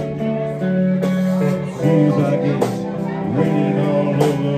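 Live band playing a slow soul ballad, an instrumental passage with the electric guitar to the fore.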